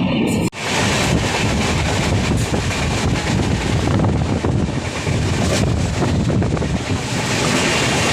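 Express train running at speed, its rumble mixed with heavy wind rush on the microphone, a loud steady noise that starts abruptly about half a second in.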